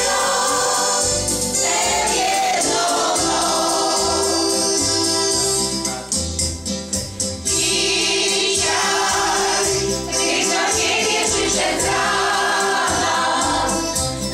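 Choir of older women singing a song together, with keyboard accompaniment carrying a bass line underneath.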